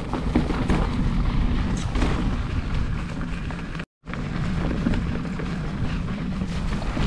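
Specialized Stumpjumper mountain bike riding over dry dirt singletrack: a steady low rumble of tyres and rushing air on the camera microphone, with small rattles and clicks from the bike. The sound cuts out completely for a moment about four seconds in.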